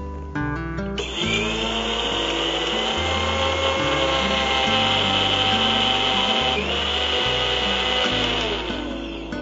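Electric mixer grinder (mixie) grinding sugar with cardamom pods into powdered sugar. The motor spins up about a second in, cuts out briefly and picks up again a little past the middle, then winds down near the end. Background music plays underneath.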